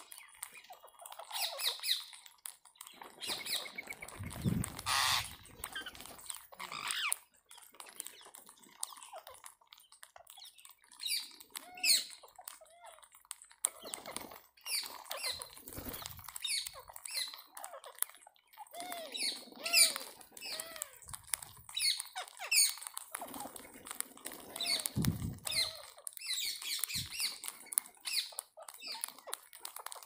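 A feeding flock of rose-ringed parakeets calling in short, shrill squawks and chirps, over a constant patter of sharp clicks from beaks pecking and cracking grain on the hard ground. A few low thumps come in between.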